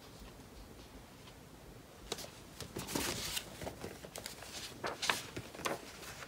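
Picture-book pages being handled and turned: irregular paper rustles and small clicks that start about two seconds in, after a quiet moment of room tone.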